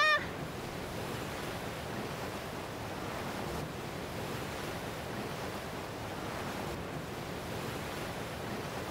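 Steady rush of ocean surf washing on a rocky shore, with no music under it. A woman's held sung note cuts off right at the start.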